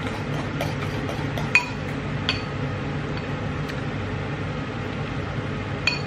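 Metal spoon stirring sauce in a ceramic bowl, clinking against the bowl with short ringing clinks about a second and a half in, again shortly after, and twice near the end, over a steady low hum.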